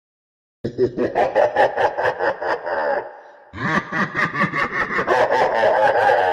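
Laughing sound effect: a voice laughing in quick rhythmic pulses, in two runs of about two and a half and three seconds with a short break between.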